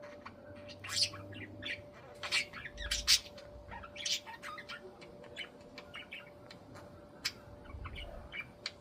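Budgies chirping and squawking in short, scattered calls.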